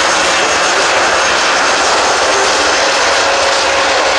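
Airbus A400M's four Europrop TP400 turboprop engines and counter-rotating propellers running as the aircraft moves along the runway: a loud, steady drone with a faint steady whine in it.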